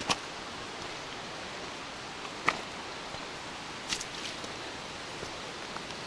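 Steady rushing noise of the forest with a few sharp snaps, one at the start, one about two and a half seconds in and a quick pair about four seconds in: a hiker's footsteps cracking twigs on the forest floor.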